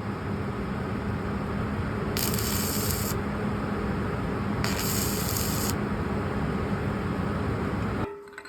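Steady hissing noise with two louder bursts of high hiss, each about a second long, a couple of seconds and about five seconds in; it cuts off suddenly near the end.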